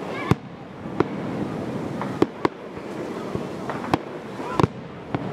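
Aerial fireworks shells bursting, with about six sharp bangs at irregular intervals, two of them close together near the middle and two more close together near the end.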